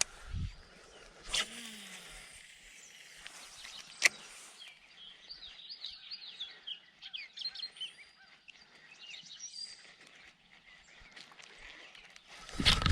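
Small birds chirping and twittering outdoors, with a single sharp click about four seconds in and a louder burst of noise just before the end.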